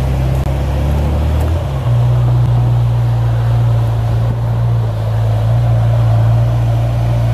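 Ferrari F40's twin-turbo V8 running at low speed as the car creeps forward, a steady low engine note that shifts slightly in pitch about two seconds in.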